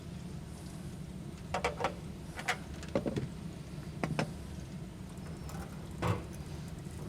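A few short, light clicks and knocks of tools and metal parts being handled on a gas water heater, spread over a few seconds, over a steady low hum.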